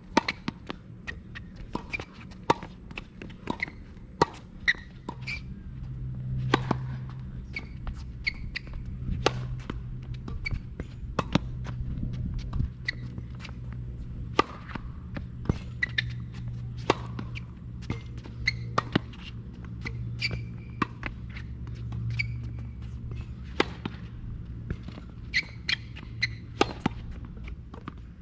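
Tennis serve practice on a hard court: sharp pops of the racket striking the ball every few seconds, with lighter knocks of the ball bouncing and shoes on the court between hits, over a low steady rumble.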